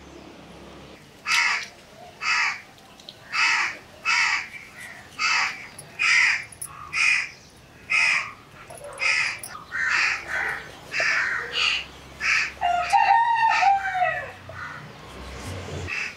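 Crows cawing over and over, a short harsh caw about once a second from about a second in. Near the end a rooster crows once, a longer call that falls in pitch.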